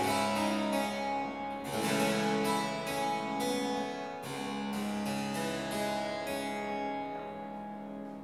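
Solo harpsichord playing a slow prelude: plucked notes over sustained low notes, thinning and dying away near the end.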